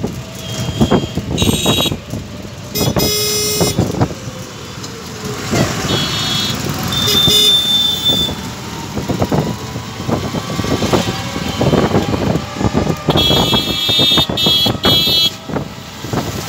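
Road traffic heard from a moving e-rickshaw: vehicle horns honk several times, with one longer blast a few seconds in and a quick run of honks near the end. Under them the rickshaw's body rattles and knocks over the rough road with constant road noise.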